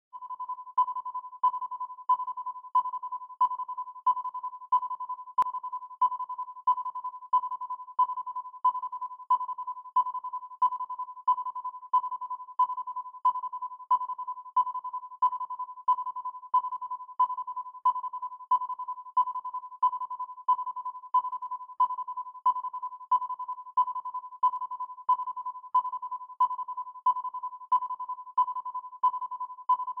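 Electronic background loop: one steady synthesized tone that pulses with a sharp tick about one and a half times a second, unchanging throughout.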